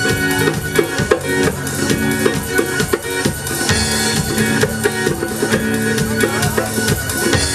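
Live band music: a drum kit keeps a steady beat under held keyboard tones.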